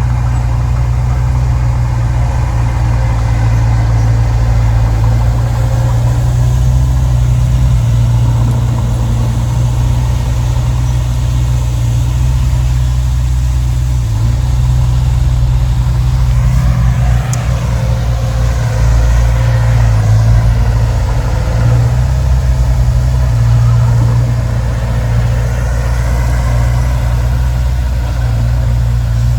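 Heavy diesel earthmoving machinery running steadily with a deep engine rumble. Higher tones sweep up and down about halfway through.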